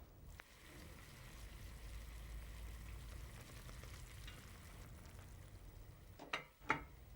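Faint, steady sizzling of food cooking in a pan, with a few short knocks near the end.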